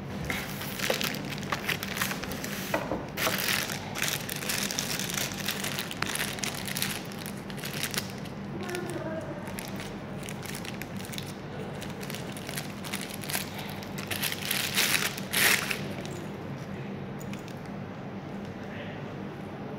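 Clear plastic packaging bag crinkling and rustling in repeated short bursts as a monitor's VGA cable is pulled out of it, loudest about fifteen seconds in and quieter after that, over a steady low hum.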